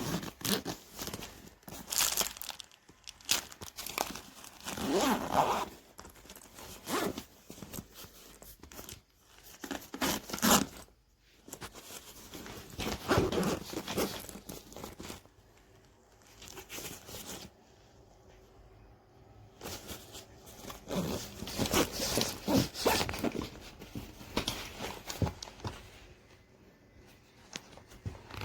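Plastic packaging and a fabric bag being handled: crinkling and tearing in irregular bursts, with quieter pauses between them.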